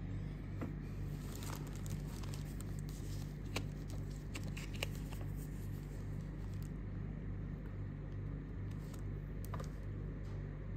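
Paper packaging and a sticker being handled: light crinkling and rustling with scattered sharp crackles, most in the first half, over a steady low hum.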